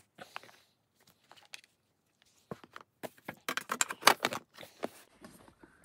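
Hair accessories being handled and put into a container: a string of light clicks and small rattles, busiest about three and a half to four and a half seconds in.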